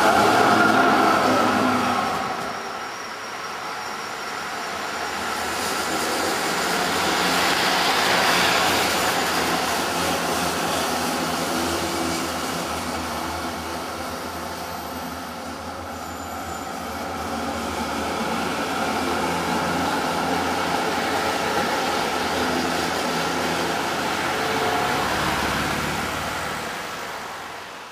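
Electric tram running on rails. A wheel squeal dies away in the first two seconds, then steady rolling and motor noise swells twice and fades out near the end.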